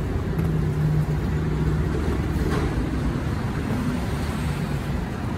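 Road traffic: a motor vehicle's engine running close by, a steady low hum.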